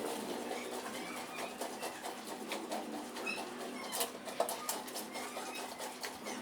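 Scattered short bird chirps over a steady low hum, with a few light clicks.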